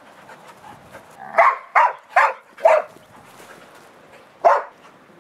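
A dog barking during rough play with another dog: four short barks in quick succession, then one more near the end.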